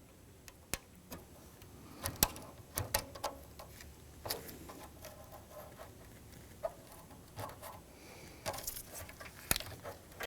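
Small screwdriver working the tabs of a piece on an F-150 hood latch to free it: irregular sharp clicks, taps and short scrapes, with the loudest clicks about two seconds in and again near the end.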